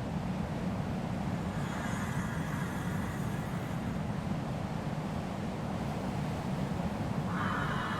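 Desert wind ambience: a steady low rumble of wind, with a brighter hiss rising over it about a second and a half in and again near the end.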